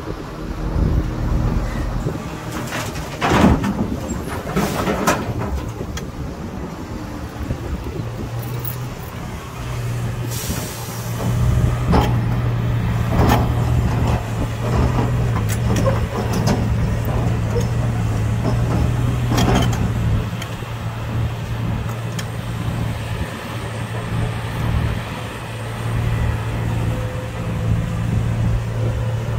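Hitachi ZX470R hydraulic excavator's diesel engine running steadily under load, with two loud crashes of rock dropping into a steel dump-truck bed a few seconds in. Later come a brief hiss and more knocks and scrapes as the bucket digs into the rock pile.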